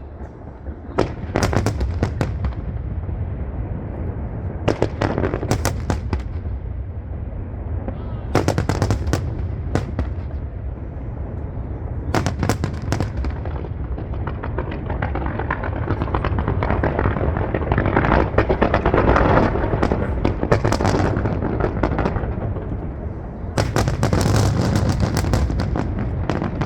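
Starmine fireworks salvo: clusters of shell bursts go off every few seconds over a continuous low rumble of booms, with a denser stretch of crackling about two thirds of the way through.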